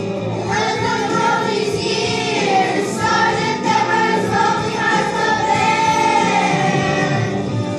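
Children's choir of fourth- and fifth-grade students singing together.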